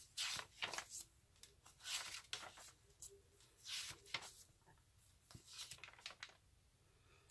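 Paper pages of a hand-decorated bullet journal being flipped by hand: a string of faint, quick papery swishes and flaps at an uneven pace.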